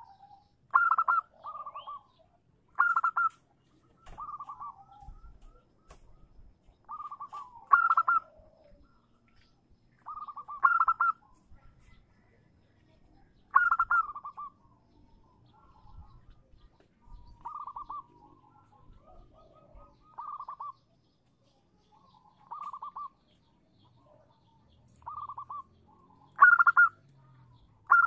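Female zebra dove (perkutut) calling: short calls of about half a second, repeated every second or two, some noticeably louder than others. It is the call a hen gives to draw in a male.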